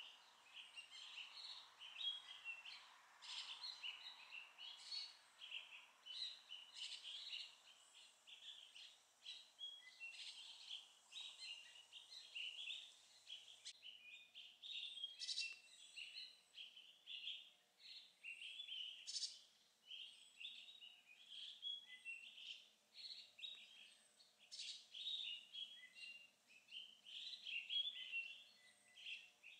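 Faint chorus of wild birds chirping and calling: a steady run of short, high chirps overlapping one another, with a louder note now and then.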